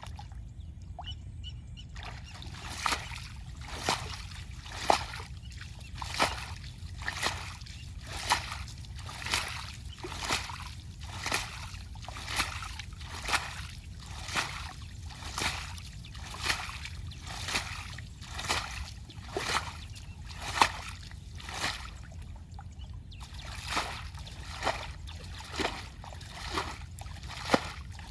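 Water splashing in a steady rhythm, about one sharp splash a second, with a short pause about three-quarters of the way through, over a constant low rumble.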